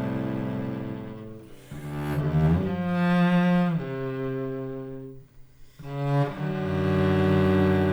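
Solo cello playing slow, long bowed notes. The pitch changes several times, and the sound dips almost to nothing about five seconds in before a new sustained note begins.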